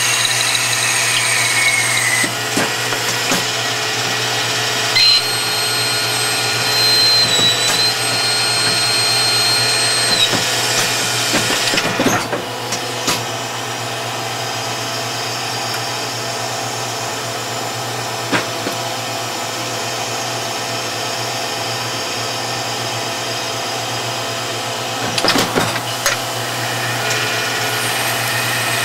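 Hardinge DSMA automatic turret lathe running its cutting cycle on bar stock under flooding coolant: a steady machine hum and cutting noise, with a high squealing tone from the tooling from about five to ten seconds in. A few sharp clunks come about twelve seconds in and again near twenty-six seconds.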